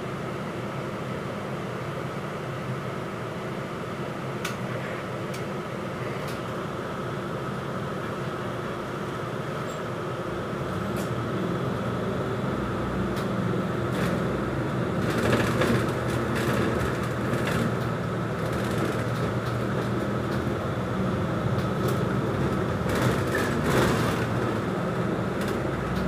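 Inside a moving city bus: steady engine and road noise with short rattles and clicks from the cabin. The engine grows louder about halfway through.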